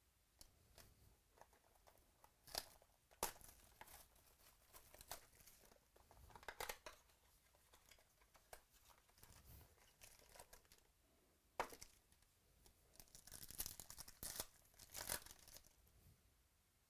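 A foil trading-card pack wrapper being torn open and crinkled, with the cards handled. Scattered sharp crackles and short tearing rasps, the busiest stretch near the end.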